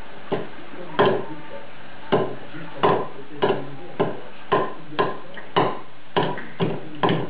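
A series of sharp knocks, about one every half second and slightly uneven in spacing, over a steady background hum.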